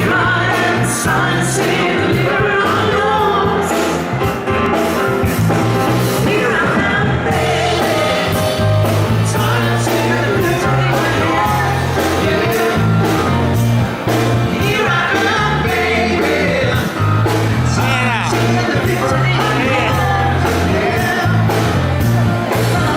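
Upbeat pop-rock song with a singer's voice and a steady bass line.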